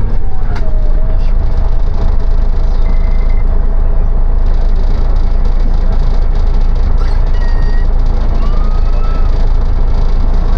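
City bus running along a street, heard from inside: a loud, steady low rumble of engine and road, with a thin whine that slides down about half a second in and holds, and a few short high squeaks later on.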